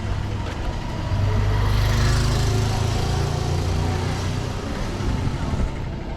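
Motor vehicle engine running with a steady low hum, growing louder about a second in and easing near the end, with a brief rushing swell around two seconds in like a vehicle going past.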